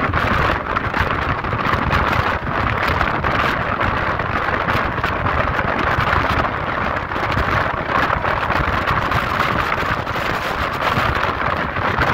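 Steady rush of wind over the microphone with the running noise of an express train coach at speed, heard from the open coach door.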